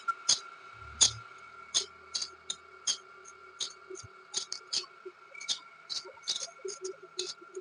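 Ceiling fan running with dry bearings: irregular sharp squeaks and ticks, two or three a second, over a steady faint whine. The sign that the bearings need greasing.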